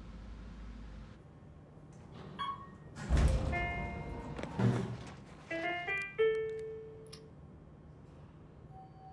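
Sparse music: a handful of separate notes and short chords, spaced out over several seconds, with a single held tone coming in near the end.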